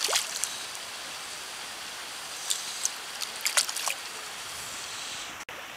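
Lake water sloshing steadily with a few short splashes, about two to four seconds in; the sound drops out for an instant near the end.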